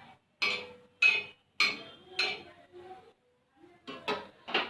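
Kitchen dishes clinking: about seven sharp clinks with a short ring after each, four in the first half and three close together near the end.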